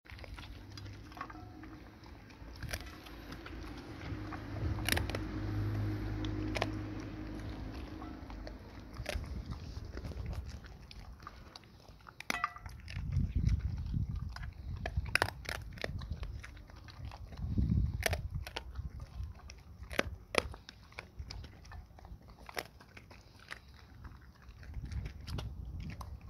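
An American Pit Bull chewing and crunching raw meaty bones: many sharp cracks of bone breaking under its teeth, coming thicker in the second half, with lower chewing sounds between.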